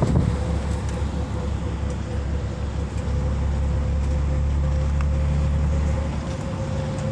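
Steady low rumble of a road vehicle on the move, with a thin steady hum above it; the rumble eases slightly about six seconds in.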